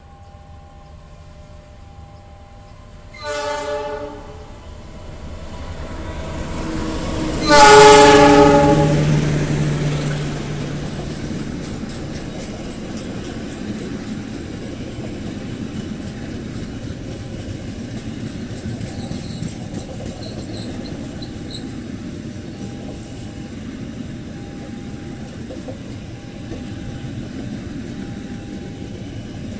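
Air horn of a CC206 diesel-electric locomotive: a short blast about three seconds in, then a longer, louder blast around eight seconds in. Then the passenger carriages roll past with a steady rumble and light clicks of the wheels over the rail joints.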